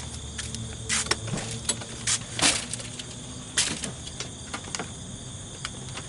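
Blue painter's tape being peeled off an RV's furnace access door in several short crackling rips, the loudest about two and a half seconds in.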